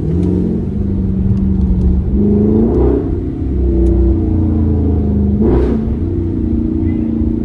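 Car engine accelerating hard through the gears, its pitch climbing and then dropping back at each upshift, with short rushing bursts of noise around two of the shifts.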